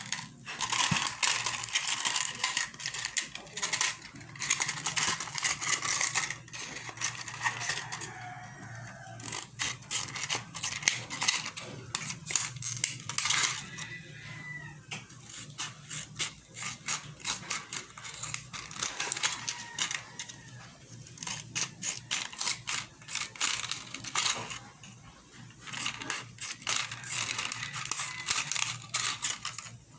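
Scissors cutting strips into a thin plastic soft-drink bottle: irregular crisp snips and crackling of the plastic, with short pauses between cuts.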